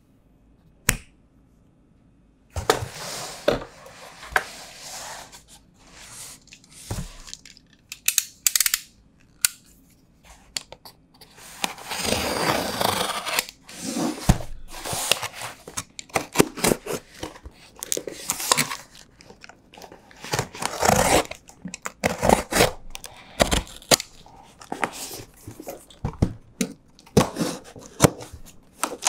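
Smartphone retail packaging being handled and opened by hand: an irregular run of tearing, crinkling, scraping and clicking of paper, cardboard and plastic, with one longer tearing stretch near the middle.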